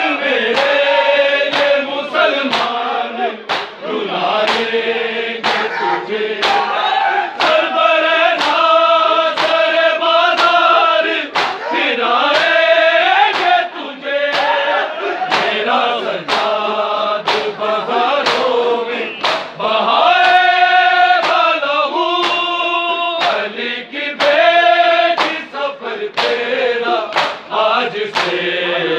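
A crowd of men singing a noha (Urdu mourning lament) in chorus, over a steady beat of sharp hand slaps in unison: matam, the ritual beating of bare chests with the palms, keeping time with the lament.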